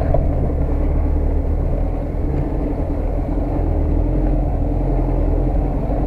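UAZ off-roader's engine running steadily, with the low rumble of the vehicle crawling along a rutted snow track, heard from inside the cab.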